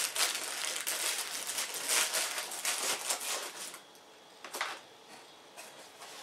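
Thin plastic packaging bag rustling and crackling in the hands for about the first three and a half seconds. It then goes quieter, with a couple of small taps from the cardboard box.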